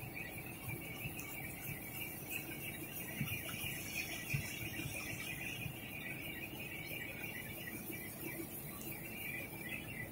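Rotogravure printing machine running steadily, its rollers and drive giving a low rumble under a constant high-pitched whir.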